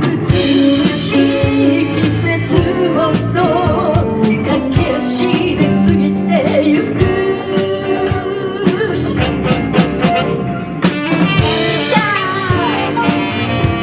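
Live band playing an instrumental passage of a pop song: drum kit, bass and keyboard chords under a lead melody line with bending, wavering notes.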